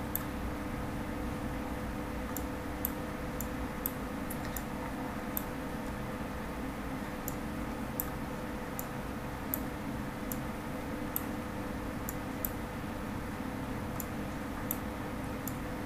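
Computer mouse button clicking as brush strokes are drawn: sharp clicks at irregular intervals, some in quick pairs, over a steady background hum and hiss.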